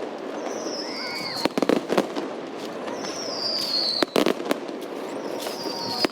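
Fireworks display: three whistling fireworks, each a falling whistle, about two and a half seconds apart, with sharp bangs in quick clusters around two seconds and four seconds in, over a steady crowd hubbub.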